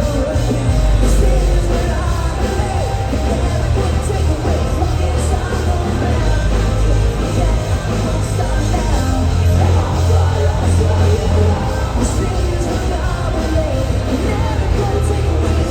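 Live post-hardcore band playing loud, with distorted guitars, heavy bass and drums, and sung and screamed vocals, recorded from the audience.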